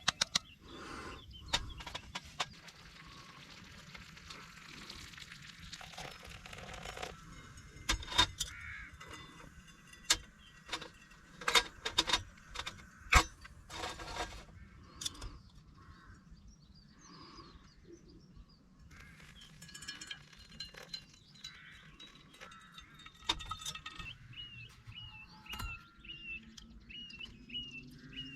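Scattered sharp clicks and knocks, densest in the middle, over a quiet outdoor background. Near the end a bird sings a short chirping note over and over.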